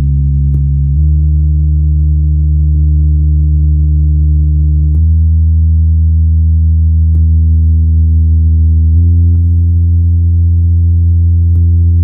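Sony SRS-XB43 portable Bluetooth speaker playing a low-frequency bass test: steady deep tones, each held for about four seconds, stepping to a new pitch about a second in, again about five seconds in, and about nine seconds in.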